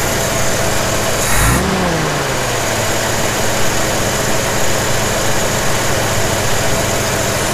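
A 1981 Jeep CJ7's engine idling on a Weber 32/36 carburetor while the idle mixture screw is turned to lean it out, with a brief change in the engine note about a second and a half in.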